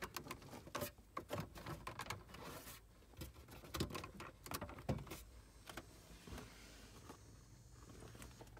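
Scattered clicks and light knocks of hands working a plastic lower dash trim panel and handling the phone against it, busiest over the first six seconds, then a faint steady hum.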